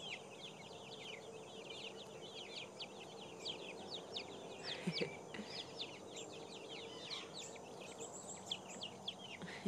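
Silkie chicks peeping: many short, high, falling peeps overlapping continuously, with a brief lower sound about five seconds in.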